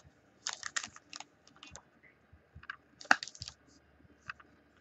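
Crinkling and clicking of a foil trading-card pack wrapper being handled in the fingers, in a few short irregular clusters, the sharpest crackle about three seconds in.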